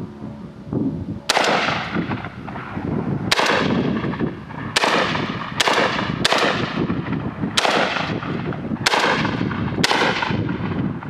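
UTAS XTR-12 semi-automatic, box-magazine-fed 12-gauge shotgun firing eight shots in a fairly quick string, about one a second, each blast trailing off in a short echo.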